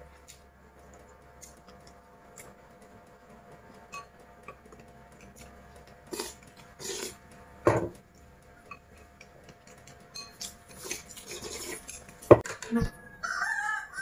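Chopsticks tapping and scraping against glass bowls and a plate during a meal: scattered light clicks, with a few louder knocks, the loudest about eight seconds in.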